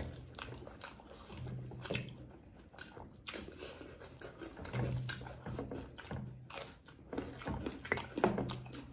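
Close-up chewing and mouth sounds of people eating rice and pork with their hands: irregular smacks and small clicks, with fingers working food on steel plates.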